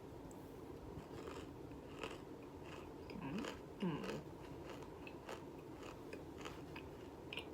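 Close-up biting and chewing of crisp baked cornstarch chunks, with scattered small crunches and clicks. Two short vocal sounds come about three and four seconds in.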